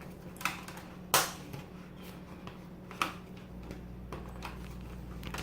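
Plastic clips of a laptop's clip-on screen bezel snapping loose as it is pried up by fingernail: a few sharp clicks, the loudest about a second in and another near three seconds.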